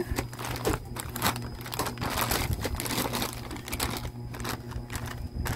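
Packaging crinkling and rustling as it is handled, in dense irregular crackles with small clicks.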